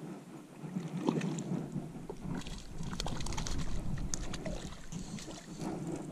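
Lake water sloshing and lightly splashing around a log as a hooked fish is worked beside it, with scattered clicks and scrapes of hand and fishing-gear handling. A low wind rumble on the microphone swells in the middle.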